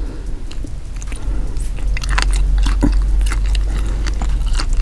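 Close-up chewing and biting of grilled squid: many short mouth clicks, thickest in the second half, over a steady low hum.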